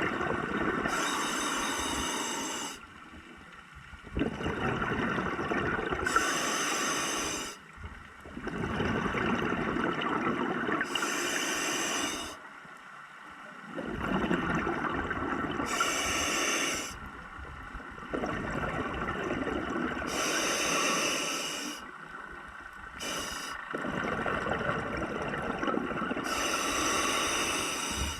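Scuba diver breathing underwater through a regulator: a rushing hiss and bubbling repeated in a steady breath cycle, about six breaths.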